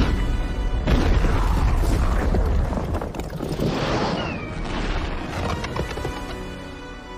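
Film sound mix of a volcanic eruption: deep booms and rumbling under a music score, with sudden heavy blasts at the start and again about a second in, then easing off toward the end.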